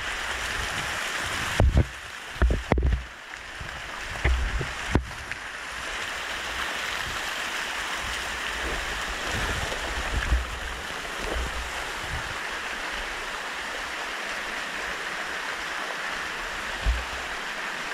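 Steady rush of water from a canyon stream, with a few low bumps in the first few seconds.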